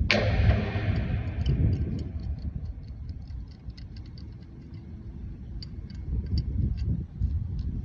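A sudden clank at the start with a hiss that fades over about two seconds, then a run of light, sharp ticks, about three a second, over a low rumble.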